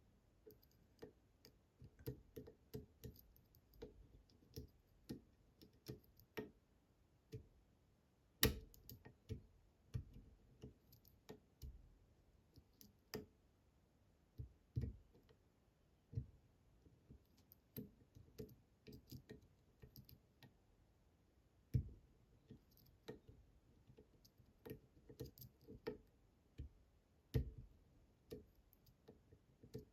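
Faint, irregular metal clicks and taps of a pick pushing down the pins of a French Pollux 7 Bramah-style pump lock held under a tensioner, the pins being pushed over and over again.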